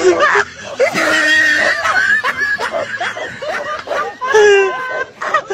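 People laughing hard, with voices and short cries mixed in.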